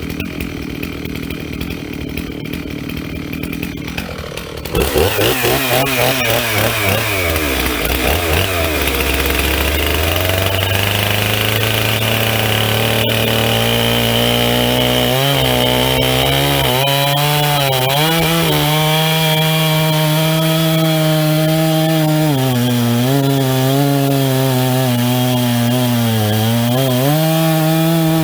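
Two-stroke chainsaw idling, then opened up to full throttle about five seconds in and cutting into a pine block, the engine note dipping and recovering as the freshly sharpened chain bites under load.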